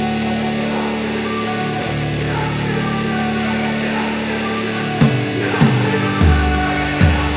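Background music: a guitar-led rock track with sustained notes, and drums kicking in about five seconds in.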